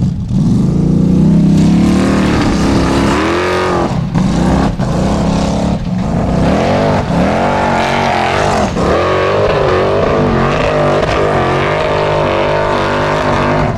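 Formula Offroad buggy's engine revving hard, its pitch rising and falling over and over as the throttle is worked, with brief dips where the revs cut.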